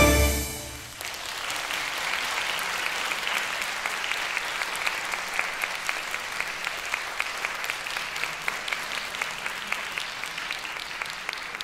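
The last chord of a flute, koto and Electone trio rings out and stops about a second in. The audience then applauds steadily, the clapping thinning near the end.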